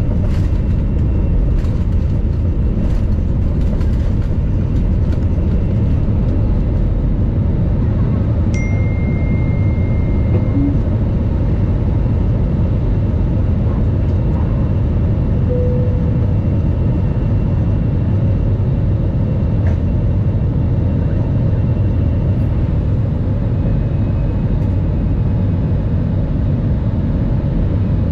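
Airbus A320 cabin at takeoff thrust: the jet engines and rushing air make a steady, heavy rumble through the takeoff and climb-out. A few light knocks come in the first few seconds, and a short faint beep about eight seconds in.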